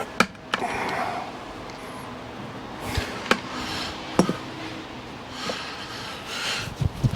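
Irregular clicks and knocks, about half a dozen, as the cat tree's wooden post, platform and bolt are handled and fitted together, with soft rustling between them.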